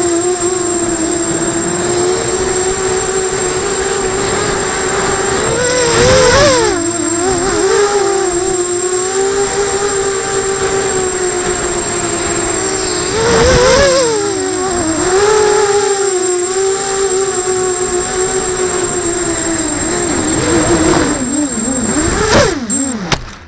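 A 250-size FPV racing quadcopter's electric motors and propellers buzzing in flight. The pitch wavers with the throttle and swells twice, about six and thirteen seconds in, then winds down and cuts off near the end as the motors stop.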